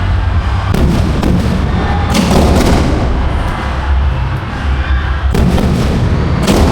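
Aerial fireworks shells bursting in several sharp reports, with crackling trails, over music playing underneath.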